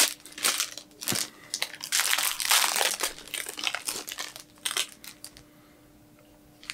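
Plastic wrapping of a boxed fruitcake crinkling as it is unwrapped by hand, in an irregular run of rustles that dies away about five seconds in.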